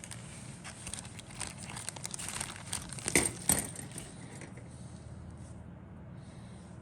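Crinkling and rustling of plastic packaging, like kit sprue bags being handled, with a couple of louder crackles about three and a half seconds in. It dies away for the last few seconds, leaving a low steady hum.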